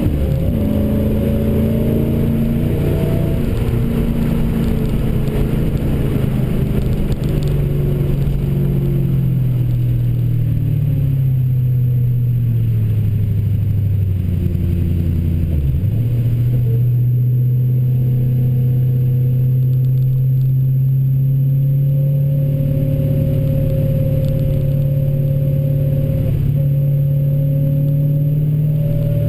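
Dodge Challenger SRT8's Hemi V8 heard from inside the cabin while driven hard on track, with road and wind noise underneath. The engine note rises and falls through the first half, dips sharply for a moment about halfway, then holds a steady drone.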